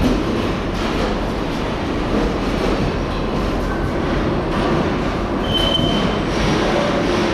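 Steady rumble and clatter in a 2 ft gauge underground mail railway station, with short metal clanks from wheeled mail containers and a brief high squeal about five and a half seconds in.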